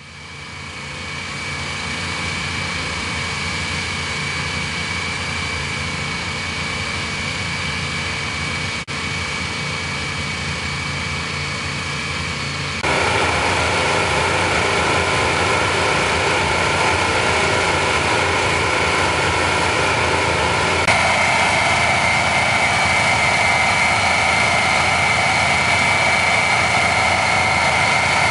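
Several small Honda petrol engines on the hot-water drilling units running steadily, with a steady high whine on top. The sound steps up louder about thirteen seconds in and shifts again near twenty-one seconds.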